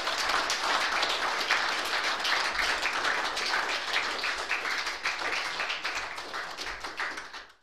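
Audience applauding at the end of a talk: dense clapping that holds steady, then thins and fades out near the end.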